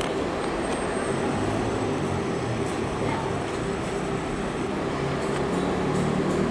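City street traffic: a steady rumble of vehicle engines and tyres, with a heavy engine running low, growing a little louder near the end.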